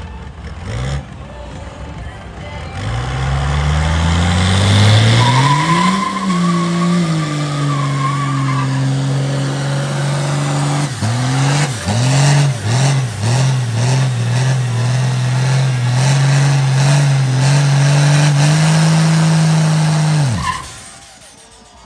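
Ford Galaxie doing a burnout: the engine revs up over a few seconds and is held high while the rear tires spin and squeal. Midway the revs dip and bounce back several times in quick succession. Near the end the engine sound stops abruptly.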